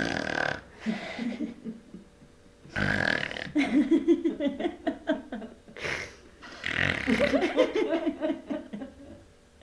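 A woman making silly throaty noises with her voice, burp- and snore-like, in a string of bursts with short gaps.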